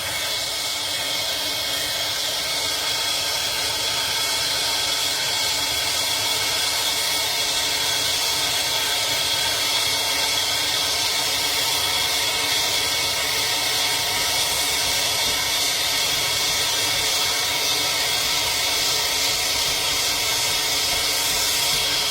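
A plumber's gas soldering torch flame hissing steadily while a copper pipe joint is heated.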